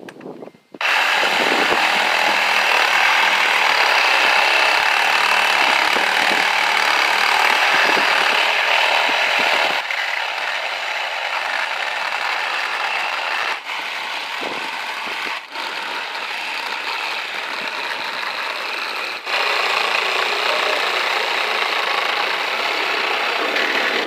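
A power tool cutting into a scrap electric motor to get at its copper windings, running loud and steady. It starts about a second in, eases a little midway, stops for a moment a few times, and comes back louder near the end.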